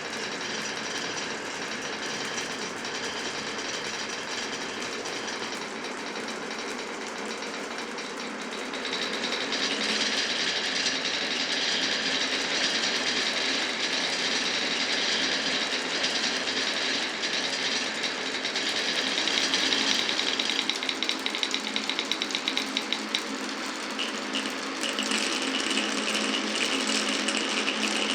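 Glass marbles rolling and clattering along a wooden and plastic marble run, a continuous rattle that grows louder and brighter about a third of the way in, with a stretch of rapid clicking near the end.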